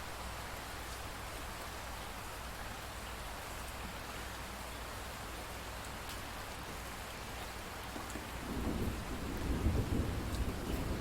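Steady rainfall, an even hiss of drops. About eight seconds in, a low rumble of thunder builds up under the rain and keeps rolling.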